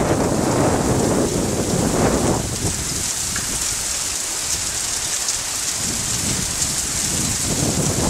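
Heavy downpour of rain, a steady dense hiss. A low rumble of thunder over the first couple of seconds fades away, with low rumbling creeping back near the end.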